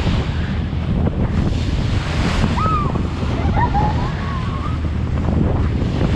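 Wind buffeting the microphone over the steady rush of a ferry's wake churning along the hull.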